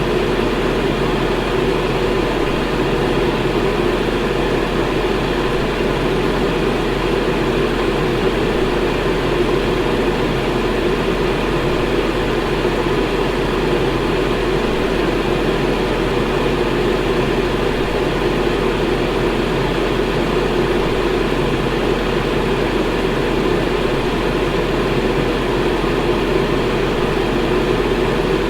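Electric fan running steadily: an even rush of air with a constant low hum beneath it, unchanging throughout.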